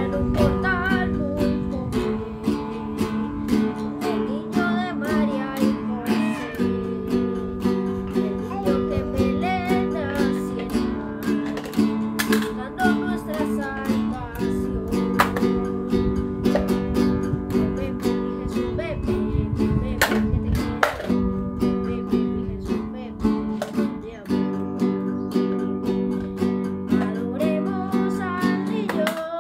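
Acoustic guitar strummed in a steady rhythm, with a new chord every few seconds.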